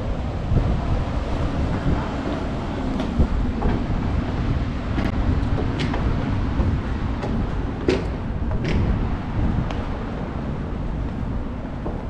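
Steady low rumble of outdoor city ambience, wind and distant traffic, with scattered sharp clicks and taps, a few of them ringing briefly.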